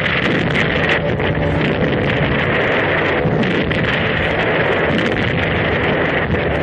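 Steady drone of aircraft piston engines, blended with a loud rushing noise like airflow, as heard from a bomber in flight.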